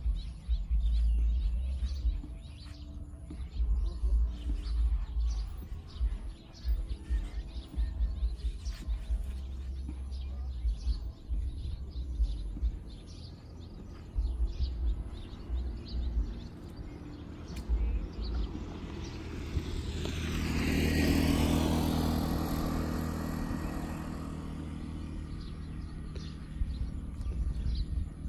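Outdoor ambience: wind gusting on the microphone with birds chirping, and about twenty seconds in a vehicle passes on the road, rising and fading over roughly four seconds.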